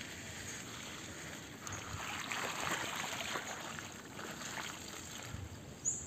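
Mountain bike tyres rolling over a wet, muddy dirt track strewn with fallen leaves: a steady rolling hiss with faint crackles, a little louder a couple of seconds in.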